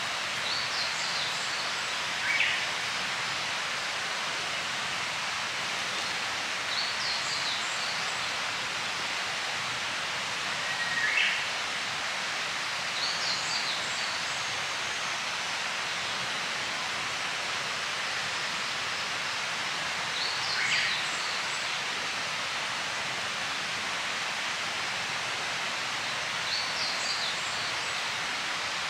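Steady outdoor ambient hiss with a short, high chirping call recurring every six to nine seconds.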